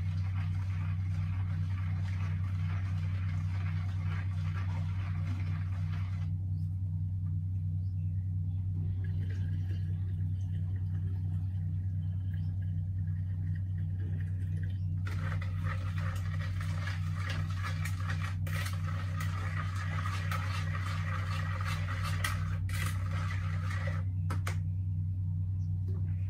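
Sugar water poured from a plastic basin into a large plastic jug, a trickling splash from about halfway through until near the end. A steady low hum runs underneath throughout and is the loudest sound.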